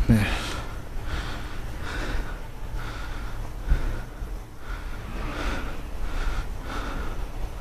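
Breathy noise close to the microphone from the person filming while walking, pulsing about twice a second over a low rumble.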